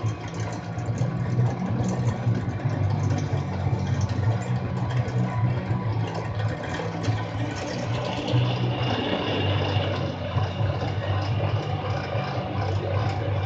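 Drill press running steadily while its bit bores a hole, with a higher scraping tone from the cut coming in about eight seconds in. The bit tends to grab as the hole gets deeper.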